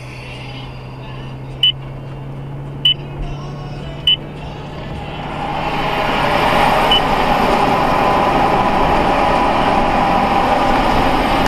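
Tyre and road noise heard inside a moving car's cabin at highway speed, growing louder about five seconds in. Three short high beeps come about a second apart in the first few seconds.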